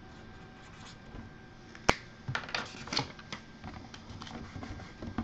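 Hands handling a cardboard mini-helmet box: one sharp click about two seconds in, then a quick run of softer clicks and rustles.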